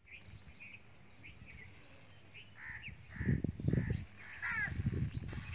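Birds giving short, harsh, crow-like calls again and again. About halfway through, gusty wind starts buffeting the microphone with low, uneven rumbles.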